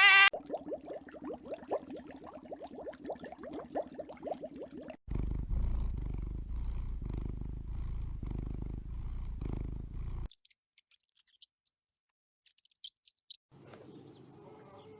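A bleat ends just as this begins. Then a cat purrs in a steady pulsing rhythm for about five seconds, and a deeper, louder purr follows for about five more seconds before cutting off suddenly. After that it is nearly quiet, with a few faint clicks.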